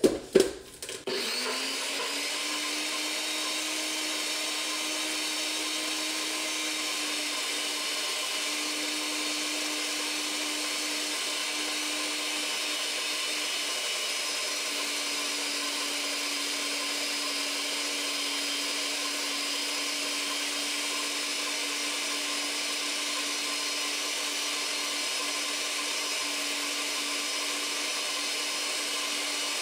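NutriBullet personal blender: a few clicks as the cup is pressed onto the motor base, then about a second in the motor starts and runs steadily with an even hum, whipping egg yolks and sweetener together.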